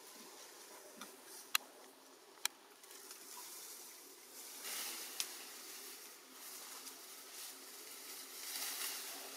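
Bamboo leaves and twigs rustling and crackling as a monkey climbs through them, with two sharp clicks about a second apart in the first few seconds and two louder spells of rustling in the second half.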